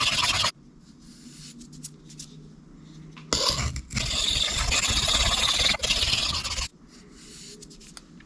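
A steel knife blade grinding across a coarse diamond sharpening stone in long scraping strokes, reprofiling the edge to grind out chips. One stroke ends about half a second in, and after a pause a second stretch of grinding runs for about three seconds.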